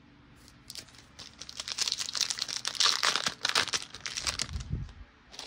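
Plastic wrapper of a Panini Diamond Kings baseball card pack crinkling and tearing as it is handled and opened, with a few low thuds near the end.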